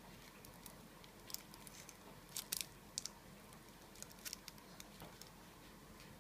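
Small scissors snipping through a thin food sheet wrapped in plastic film: a scatter of short, crisp snips, the loudest a quick cluster about two and a half seconds in.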